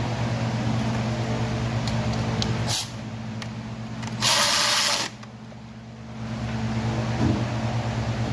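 A steady low mechanical hum that weakens about three seconds in and returns about six seconds in. In that gap comes a loud hissing rush lasting about a second.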